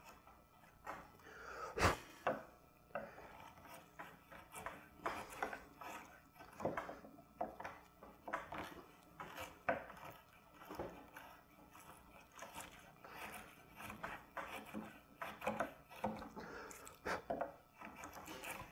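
Wide bench chisel paring a wooden diamond inlay flush with a poplar block: short slicing, scraping strokes across the grain, about one every second, with a sharper click about two seconds in.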